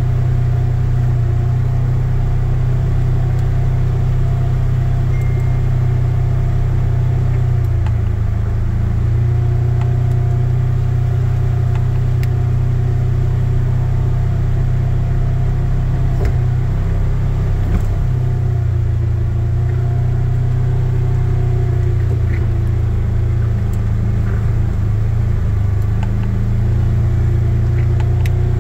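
Side-by-side utility vehicle's engine running steadily at low trail speed, heard from the driver's seat, its pitch shifting slightly a few times. A few faint ticks come through over the engine.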